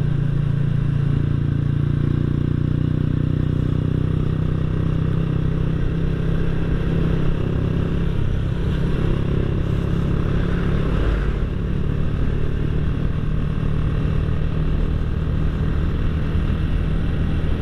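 Honda Astrea Grand's single-cylinder four-stroke engine running steadily at gentle throttle while riding. It exhausts through a Honda Revo Absolute muffler whose baffle has been gutted for a soft, deep bass note. The note shifts about eleven seconds in.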